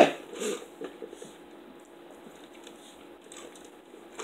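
Faint sipping and swallowing as people drink from plastic cups and bottles, with a few soft small mouth sounds in the first second or so, over a low steady room hum.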